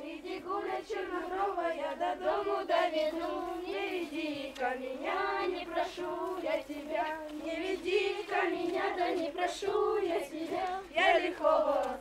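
A group of children singing a Russian folk round-dance song together.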